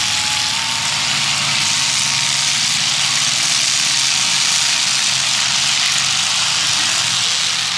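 Demolition derby car engines running steadily, a low engine note under a loud, even hiss.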